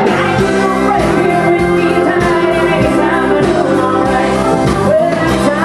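Live country band music from an outdoor stage, with a woman singing the lead over drums and guitars.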